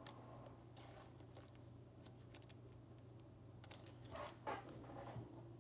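Near silence: room tone with a steady low hum and a few faint clicks and rustles.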